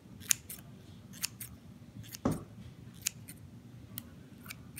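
Metal scissors snipping through slime: a series of short sharp clicks as the blades close, with one louder, duller thump a little over two seconds in.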